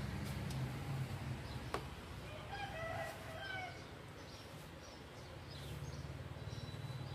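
A rooster crows once, a single call of a little over a second starting about two and a half seconds in, with a low steady hum underneath.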